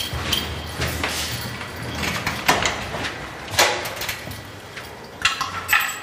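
A flat's door being opened and walked through: sharp clicks and knocks from the lock and handle, with footsteps and a few louder clatters.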